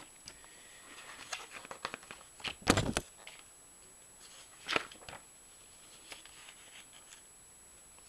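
Pages of a paper instruction booklet being turned and handled: scattered soft rustles and flicks, a louder page flip about three seconds in, and another sharp flick near five seconds.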